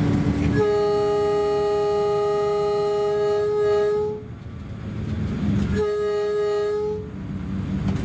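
Train horn: one long blast of about three and a half seconds, then a short blast of about a second, over a low rumble of the train.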